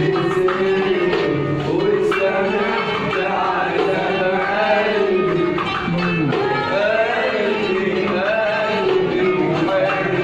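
Live Arabic music: a qanun playing a winding melody with hand-drum accompaniment, continuous and steady in level.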